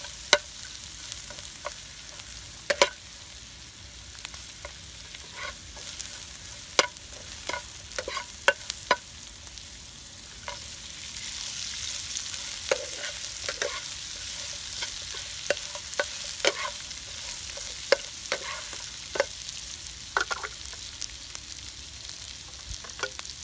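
Food sizzling in a non-stick frying pan while a metal spatula stirs it, with irregular sharp clicks and scrapes of the spatula against the pan. The sizzle gets louder about halfway through, once pieces of pork are frying with the lemongrass and chili.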